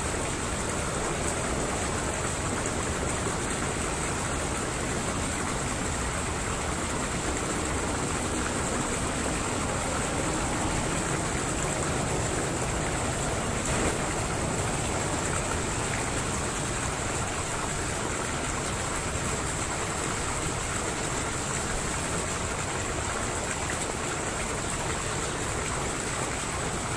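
Steady, even rushing outdoor background noise with a faint high-pitched whine, and one faint tap about halfway through.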